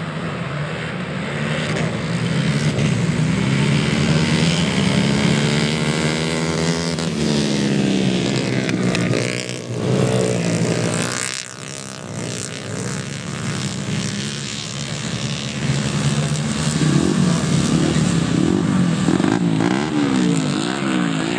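A pack of grasstrack racing motorcycles at full throttle, the engine pitch climbing over the first few seconds as they accelerate away. It drops briefly about eleven seconds in, then rises and falls quickly near the end as the riders throttle on and off.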